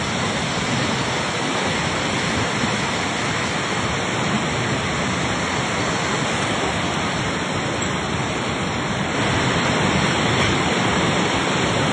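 Floodwater of the swollen Trishuli River rushing by as a steady, dense noise with no distinct events, a little louder about nine seconds in.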